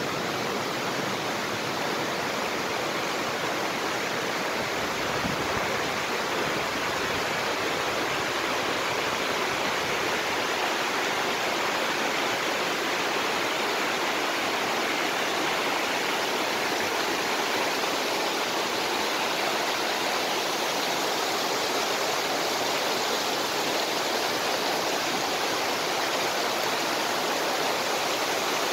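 Fast mountain creek rushing over rocks as white water, a steady, unbroken rush of water.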